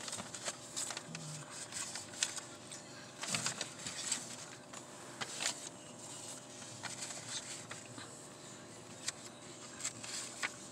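Quiet inside a stopped car: a faint steady hum with scattered small clicks and taps.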